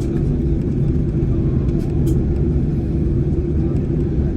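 Steady low rumble inside the passenger cabin of a Boeing 747-8i: the noise of the airliner's engines and its movement heard from a seat.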